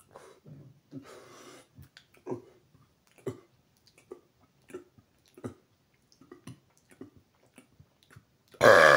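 A man swallowing air in a run of small, quiet gulps, one or two a second, to build up a burp, then a loud, long burp beginning near the end.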